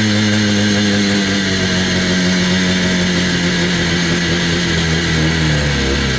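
Yamaha Blaster's single-cylinder two-stroke engine running at a high, steady idle with the quad standing still. Its pitch sags slowly over a few seconds and drops lower near the end. The rider suspects something is sticking open to make it run like that.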